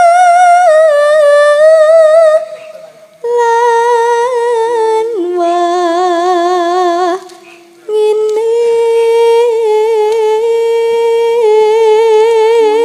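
A sinden, a female Javanese gamelan singer, sings a slow vocal line into a microphone: long held notes with a wavering vibrato, in three phrases with short breaks between them. A few low steady notes sound beneath the voice.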